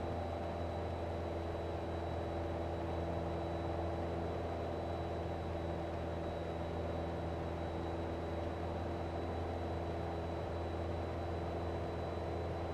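Steady drone of a single-engine Cessna's piston engine and propeller in cruise, heard inside the cockpit, with a faint steady high whine above it.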